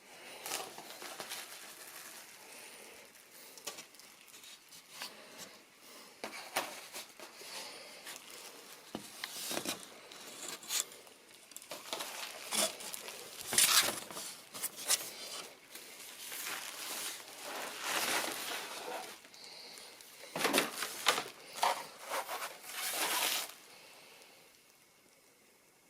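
Packaging of a model kit being handled: irregular crinkling and rustling of paper or plastic with occasional light clicks, the loudest bursts about halfway through and again a little before the end.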